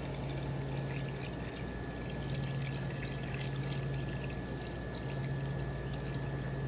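Salt brine poured from a plastic jug in a thin, steady trickle into a stainless steel pan over fish fillets, with a steady low hum underneath.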